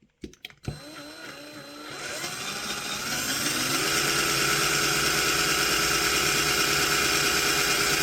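Electric drill drilling out a rivet in a die-cast model bus: a few clicks, then the motor spins up with its pitch rising over the first few seconds and runs steadily.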